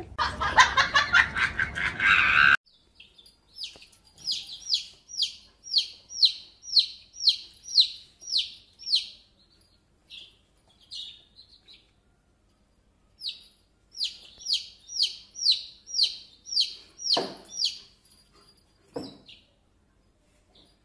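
A loud burst of sound cuts off about two and a half seconds in. Then a baby chicken chick peeps over and over, high short falling peeps about two a second, in two long runs with a pause in the middle.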